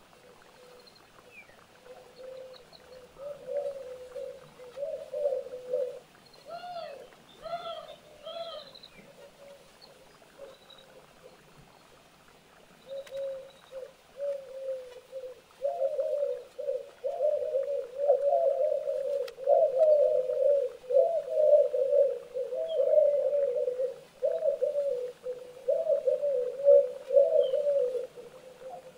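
A bird calling over and over in short, low notes: scattered calls at first, then a near-unbroken run of them through the second half.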